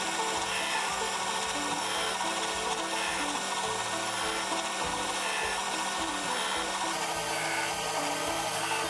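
Steady abrasive sanding noise, as of a power sander working a wooden knife handle, running throughout with a slight change about seven seconds in. Background music with a picked melody plays underneath.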